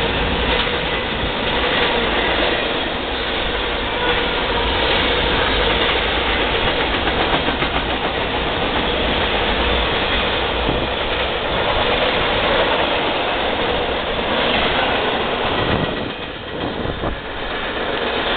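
A freight train's empty cars rolling past: a steady rumble and clatter of steel wheels on the rails, with a faint steady tone underneath. The sound briefly drops near the end, then comes back.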